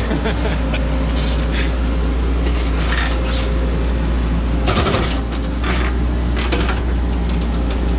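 Caterpillar 432E backhoe loader's diesel engine running steadily while the backhoe digs, heard from inside the cab, with scrapes and knocks of the bucket in the soil, the loudest about five seconds in.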